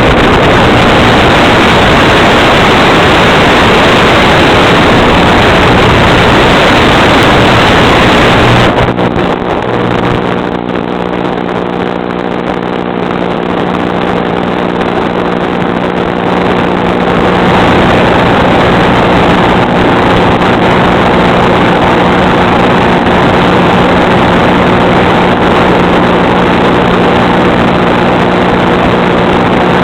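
Loud, even rushing noise. About nine seconds in, it eases slightly and a steady motor drone with several fixed pitches takes over and holds.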